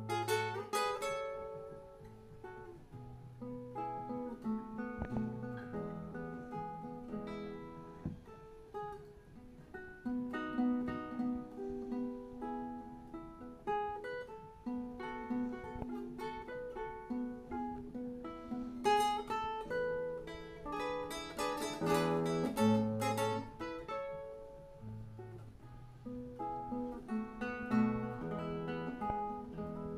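Background music: a solo classical guitar piece, single plucked melody notes over a bass line.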